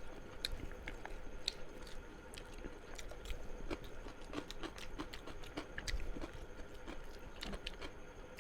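Close-up chewing and mouth sounds of a person eating chicken biryani: scattered small clicks and smacks of biting and chewing.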